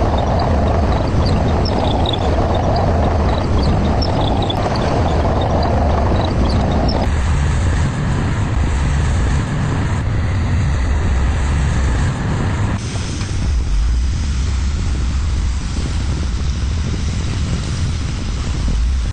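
Excavator's diesel engine running with a steady low rumble, its character changing abruptly twice, about a third of the way in and again past the middle.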